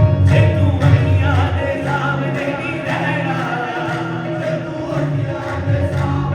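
Qawwali music with wavering sung vocal lines over a steady percussion beat. A heavy bass drops away for a few seconds in the middle and comes back near the end.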